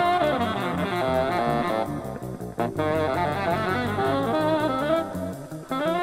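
A jazz recording played from a vinyl LP: a saxophone carries a melody over electric bass.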